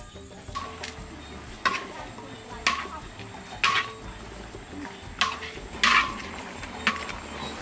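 A metal utensil clanking against a metal cooking pot about seven times at uneven intervals, each clank ringing briefly, as food is stirred and mixed.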